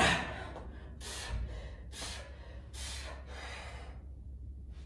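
A man breathing hard from exertion: the tail of a forceful exhale at the start, then about four loud breaths roughly a second apart.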